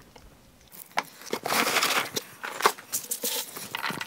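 Handling noise from packaging: crinkling and rustling with scattered sharp clicks and knocks, loudest about a second and a half in.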